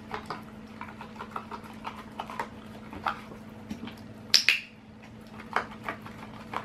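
An Australian Shepherd licking out a plastic dairy tub and her own muzzle, a run of small wet licking clicks. About four seconds in, a dog-training clicker gives one sharp double click, marking the moment she licks her muzzle. The licking at the tub resumes near the end.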